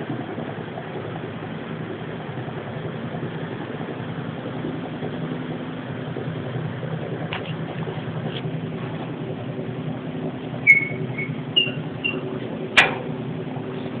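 A steady low drone with several fixed pitches, of unknown origin, which the person recording likens to a helicopter. A few short high chirps come about eleven seconds in, followed by a sharp click.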